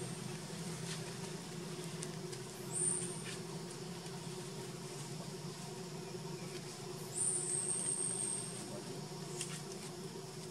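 Forest ambience: two high, thin insect calls, a short one about three seconds in and a longer one of just over a second about seven seconds in, over a steady low hum, with a few faint clicks.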